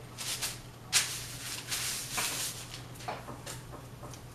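Hand spreading flour over parchment paper: several soft, dry swishing strokes, the sharpest about a second in, over a steady low hum.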